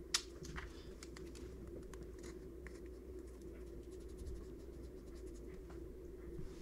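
Faint scratching and light clicks of hands pressing tape and pickup wire inside a banjo rim, with one sharper click just after the start, over a steady low hum.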